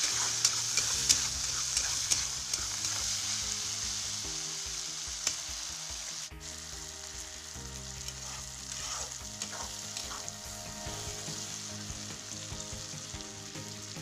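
Diced potato, cauliflower, peas and tomato sizzling in oil in a wok while a metal spatula stirs them, clicking against the pan now and then. The sizzle grows gradually fainter.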